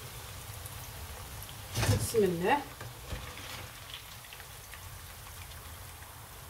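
French fries frying in hot oil with a steady sizzle. About two seconds in there is a brief clatter, followed by a short voice-like sound that dips and then rises in pitch.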